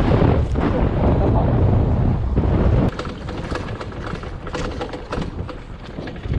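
Wind rumbling on the microphone while riding, then, after it drops off suddenly about three seconds in, a rapid irregular clattering and rattling from the electric dirt bike over rocky ground. The rattle is getting worse; the rider takes it for rocks hitting the aluminum battery box, or possibly a loose skid plate.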